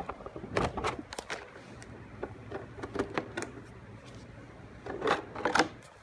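Irregular clicks and knocks of hard plastic being handled as the body shell is taken off an RC truggy, with louder clusters about a second in and again near the end.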